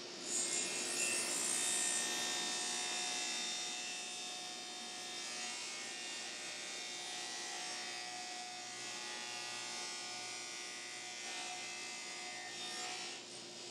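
Sliding table saw cutting an oak board: the blade bites into the wood about half a second in with a sharp high hiss, then a steady whining cut as the carriage is pushed through.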